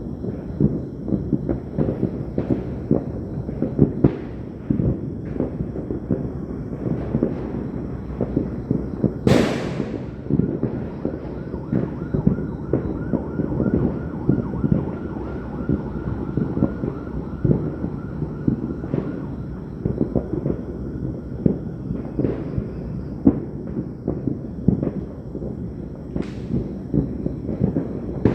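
Fireworks and firecrackers going off all around in a continuous dense run of pops and booms. One sharp, close bang comes about nine seconds in.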